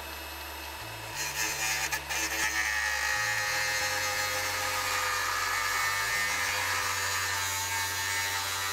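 Grinder with a cutoff wheel running with a steady high whine, then from about a second in biting into the head of a seized exhaust bolt, a louder, rougher cutting sound that holds steady.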